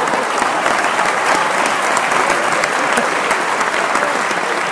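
Applause: a crowd clapping, a dense, steady clatter of many hands.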